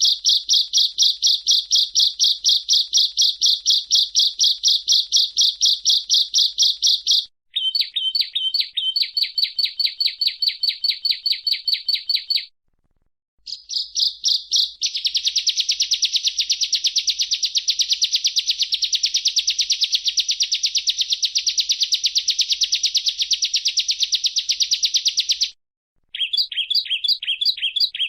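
Bar-winged prinia (ciblek) singing: loud, fast runs of high repeated chirps, several notes a second. The runs are broken by short silent gaps about 7, 12 and 25 seconds in, and the middle stretch is a dense, unbroken trill.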